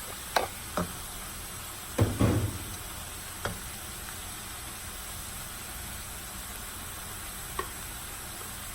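Cauliflower rice with chicken frying in oil, a steady sizzle, with a utensil knocking and scraping against the pan: a few sharp knocks in the first second, a louder clatter about two seconds in, then single taps around three and a half seconds and near the end.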